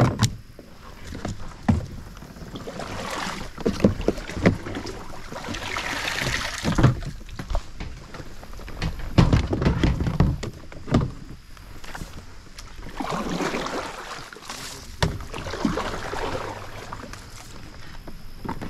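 Hollow knocks and bumps of a plastic bin being hauled onto a plastic kayak and set on its bow. In a few stretches there is a swishing rustle of reeds and water as the kayak is handled.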